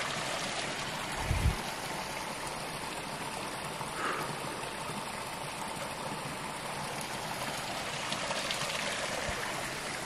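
Small waterfall and stream running low, water trickling and splashing steadily over rocks, with little flow after dry weather. A brief low thump about a second and a half in.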